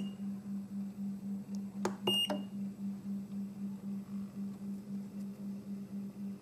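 Micropipette puller running its melt test: a low electrical hum that pulses about five times a second while the heater is powered up. About two seconds in there is a click and a short high beep from the machine.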